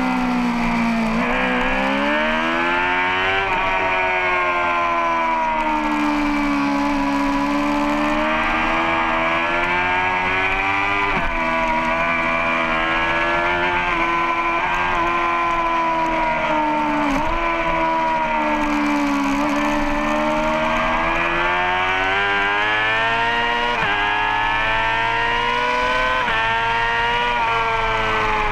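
Race motorcycle engine at speed on track. Its pitch climbs under throttle and drops sharply at each gear change, about six times, and sweeps down more slowly when slowing for corners.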